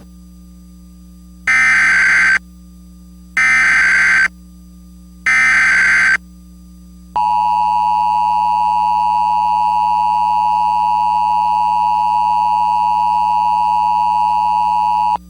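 Emergency Alert System tones: three short bursts of the SAME digital header, each about a second long, then the two-tone EAS attention signal held steady for about eight seconds and cut off sharply. Together they open an emergency alert, here a tornado warning.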